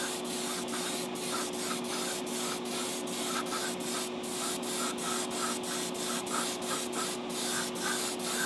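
Hobby paint booth running: a steady hiss of moving air over a low motor hum, the hiss dipping briefly about two or three times a second.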